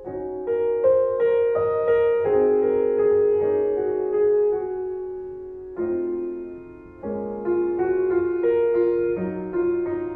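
Piano music: notes struck and left ringing as they fade, in gentle phrases that begin afresh twice in the second half.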